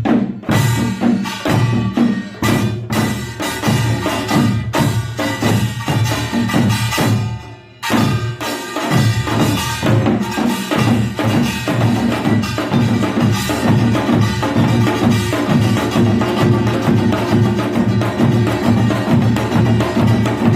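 Korean pungmul percussion band playing a fast, driving rhythm on small gongs and drums. The playing drops out for a moment about eight seconds in, then picks up again at full tempo.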